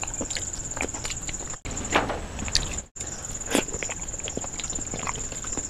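Close-miked eating sounds of someone chewing rice and curry eaten by hand: irregular wet smacks and mouth clicks, with a steady thin high-pitched tone behind. The sound cuts out briefly twice.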